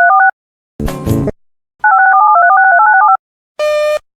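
Rapid DTMF touch-tone sequences, each beep two tones at once, changing quickly. One run ends just after the start and a second lasts about a second and a half, with a short loud burst of noise between them. Near the end a buzzy beep starts and repeats.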